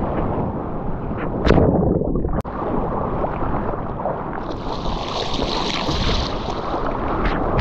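Seawater sloshing and splashing against an action camera held at the surface while a surfer paddles a surfboard, over a heavy low rumble of water and wind on the microphone. The sound cuts out for a moment about two and a half seconds in, and a hissing rush rises around the middle.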